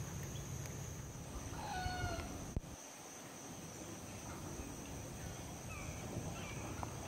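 Swamp birds calling: one drawn-out call with a slightly falling pitch about two seconds in, then a few short, high, downward chirps near the end. A steady high insect trill runs underneath.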